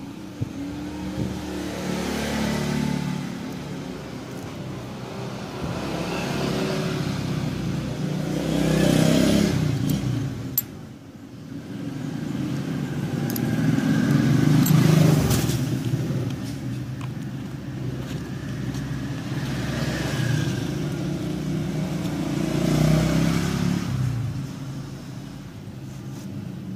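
Motor vehicles passing, engine sound swelling and fading about six times. There are a few light clicks near the middle.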